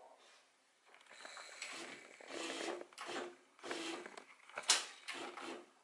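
Triumph-Adler SE310 electronic typewriter feeding a freshly inserted sheet of paper: its platen feed motor runs in a series of short bursts with a low hum, about seven in all, the sharpest near the end.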